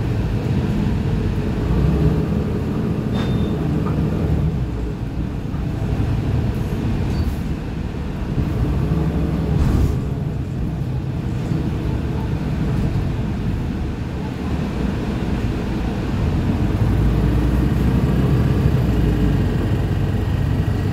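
Mercedes-Benz Citaro O530G articulated bus heard from inside the passenger cabin: the engine and ZF Ecomat automatic driveline running steadily under way, with road noise and cabin rattles. It gets somewhat louder about three-quarters of the way through.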